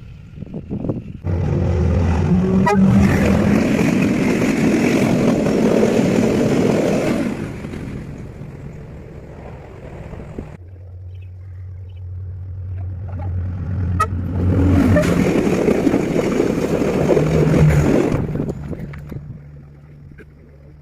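Two trains passing at speed, each a loud rumble and rattle. The first starts abruptly about a second in and dies away by about eight seconds. The second builds from a low steady hum to a peak and then fades near the end.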